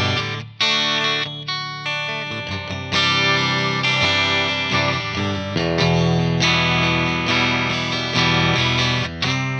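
Squier Classic Vibe Telecaster played through the clean channel of a Peavey Bravo 112 all-tube amp into a 2x12 cab with Vintage 30 speakers: chords strummed and left to ring. The tone is clean, bright and chimey, with the mids scooped.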